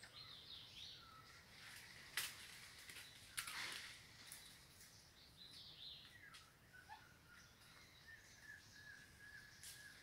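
Faint forest ambience with scattered bird chirps, broken by two sharp snaps about two and three and a half seconds in, and a thin steady note over the last few seconds.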